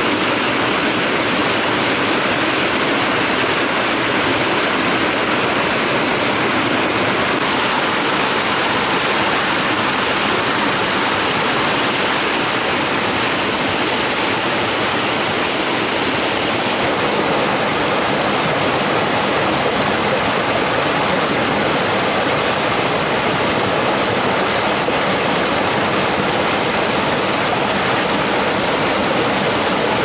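Steady rush of water spilling over a small concrete dam and gushing through its open sluice gate into the channel below.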